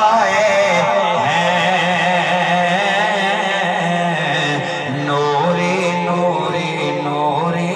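Male naat reciter singing unaccompanied through a microphone and PA, holding long, wavering, ornamented notes over a steady low drone.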